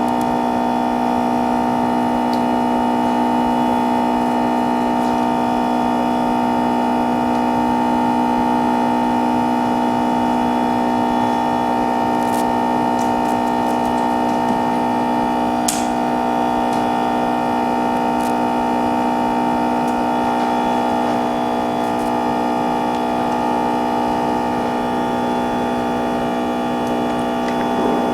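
A steady, loud drone made of several held tones that does not change, with a few faint clicks.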